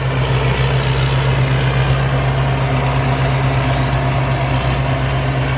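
Thai Seng Yont rice combine harvester running steadily under load while harvesting, a deep even engine hum with a thin high whine above it that slowly drops in pitch.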